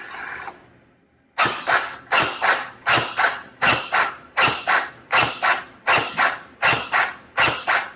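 Zoll AutoPulse mechanical CPR device: its motor runs steadily as the LifeBand load-distributing band draws down onto the manikin's chest, stopping about half a second in. About a second later it starts compressing, a pair of short motor sounds, squeeze and release, repeating about every three-quarters of a second, around 80 compressions a minute.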